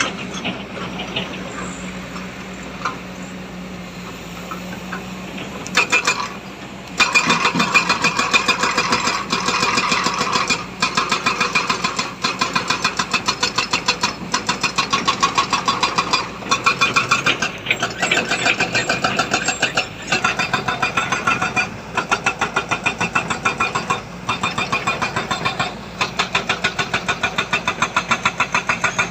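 Heavy diesel machinery engine running with a steady hum, then from about seven seconds in a louder, fast rattling pulse that dips briefly about every two seconds.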